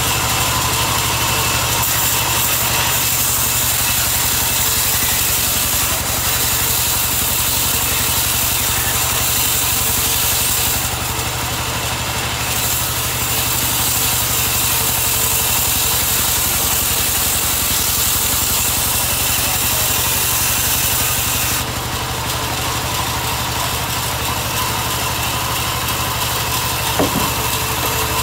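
Sawmill log band saw running steadily, a low motor hum under a bright hiss as the blade rips through a log. The hiss dips about eleven seconds in and changes again a little past twenty seconds, and there is a single knock near the end.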